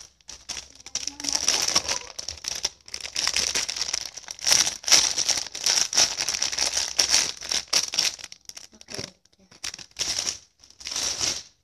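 Plastic packaging crinkling, on and off with a few short breaks, as a squishy toy in its bag is handled.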